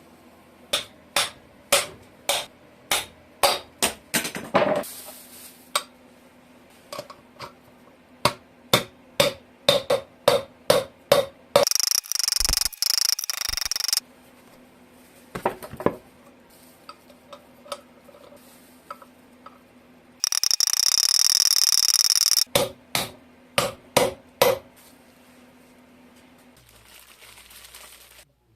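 Hand tools working on metal motorcycle parts: runs of sharp metallic strikes and taps, with two hissing blasts of about two seconds each, one around twelve seconds in and one around twenty seconds in. A faint steady hum sits underneath.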